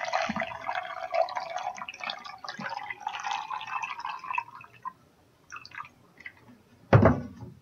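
Water pouring from a plastic jug into a plastic shaker bottle holding sugar. The steady stream tails off into scattered drips about four and a half seconds in, and a single loud thump comes near the end.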